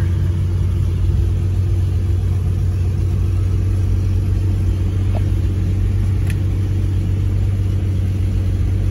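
1951 Chevrolet 3100's 216 Thriftmaster inline-six running steadily at idle, heard from inside the cab: an even low hum with no revving.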